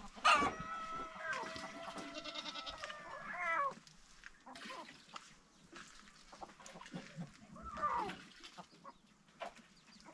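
Goat bleating: one long, drawn-out call of about three seconds near the start, then a shorter falling bleat near the eight-second mark.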